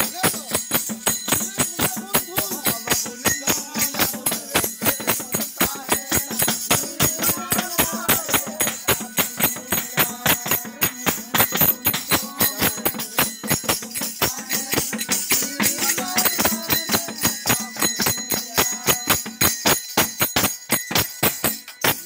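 Tambourines and small hand cymbals beating a fast, even rhythm of about four strokes a second, with a melody on a small portable keyboard over them.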